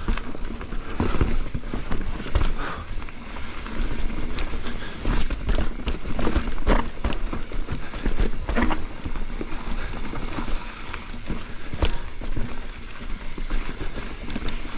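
Mountain bike ridden over a rocky trail: irregular knocks and rattles from the tyres, chain and frame hitting rocks, over a steady low rush of wind on the microphone.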